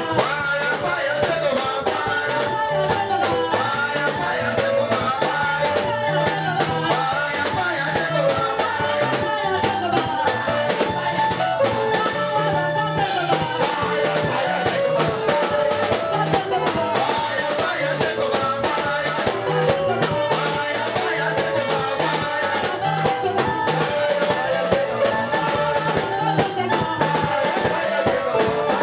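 Upbeat band music with a drum kit keeping a steady beat under a dense pitched melody.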